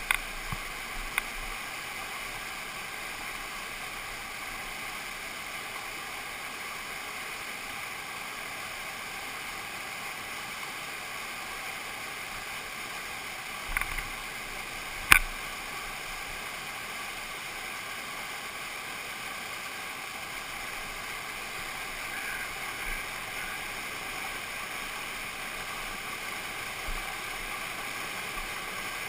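Whitewater rapid rushing steadily close by, an even roar of water pouring over rocks. Two short sharp knocks come about halfway through.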